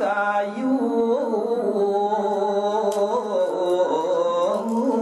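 A single voice singing a Balinese geguritan, sung poetry set to a pupuh melody. It holds long notes that waver and slide from pitch to pitch.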